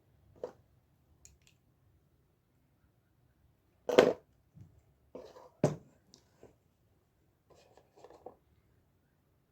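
Small parts of a mini wireless speaker being handled during reassembly: scattered light clicks and scrapes, with two louder knocks about four and five and a half seconds in.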